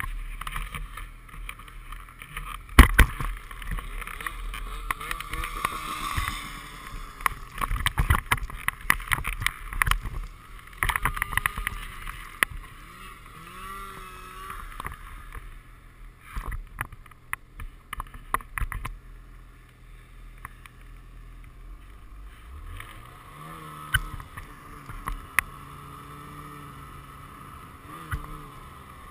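Ski-Doo snowmobile engine running and revving as the sled rides through snow, its pitch rising and falling. Sharp knocks and thumps come thick through the first two-thirds, the loudest about three seconds in.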